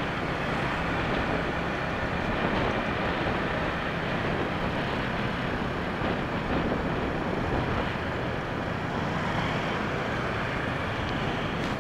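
Steady ride noise heard from the back of a moving motorbike: the bike's small engine running under road and traffic noise, with no change in pace.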